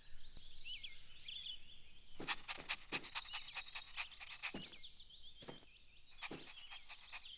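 Faint garden ambience of small birds chirping and twittering. About two seconds in there is a quick run of sharp clicks, and a few single taps follow later.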